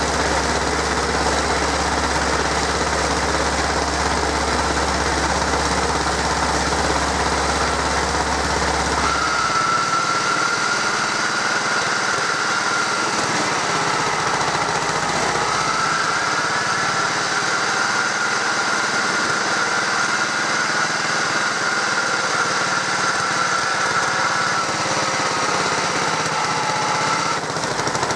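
Engine and belt drive of a 1968 Stothert and Pitt W28 Mk1 roller running on test. A deep steady hum stops about nine seconds in, and a high whine takes over, rising and falling until near the end.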